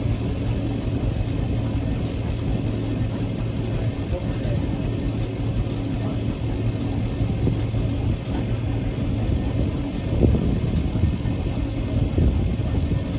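1912 Foden 7NHP compound steam traction engine running while standing still, its motion working over in a steady, continuous mechanical run with a low hum. It grows briefly louder about ten seconds in.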